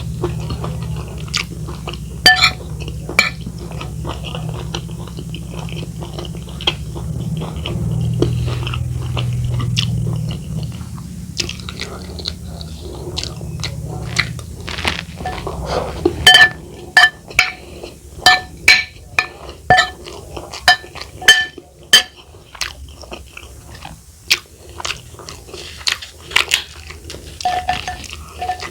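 Close-up eating sounds: a person chewing and biting crisp food, with sharp crunches coming thick and fast from about halfway. A low steady hum runs under the first half and stops about halfway through.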